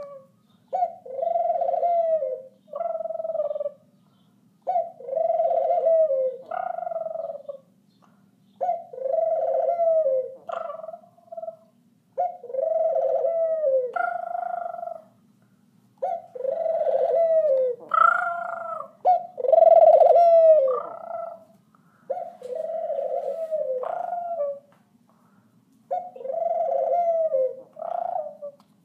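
Pet dove cooing over and over: each phrase is a long coo followed by a shorter, higher note, repeated about every three to four seconds, some eight times.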